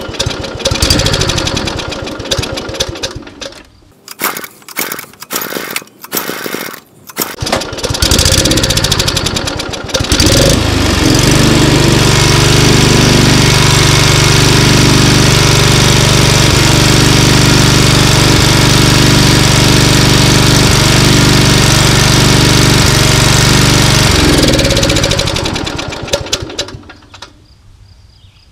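Suzuki-built engine of an old Toro lawnmower running ragged, cutting out and catching again several times, then picking up and running steady at high speed before it winds down and stalls near the end. The owner takes it for an engine starving for fuel.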